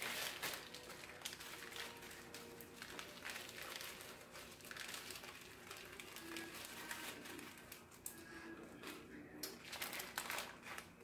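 Faint, irregular crinkling of a thin clear plastic bag of diamond painting drills as it is handled.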